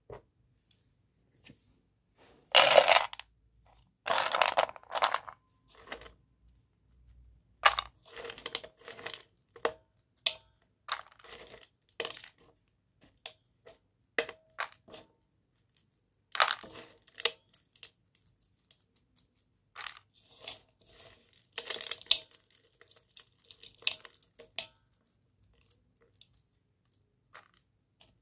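Fingers crushing and crumbling broken slate pencil pieces against a stainless steel bowl: gritty crunching and scraping in irregular bursts, the loudest about three seconds in.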